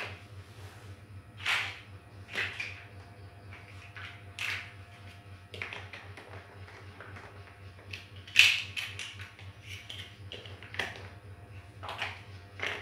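Large plastic building blocks clacking and clicking as they are picked up and pressed onto a model, in irregular knocks a second or two apart, the loudest about eight seconds in.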